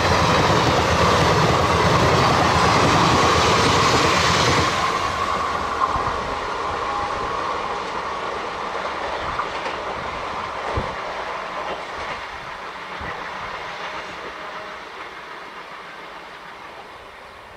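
Passenger coaches of an Indian Railways express train rushing past at speed. The loud rush drops off sharply about four and a half seconds in, then the train's rumble fades steadily as it moves away.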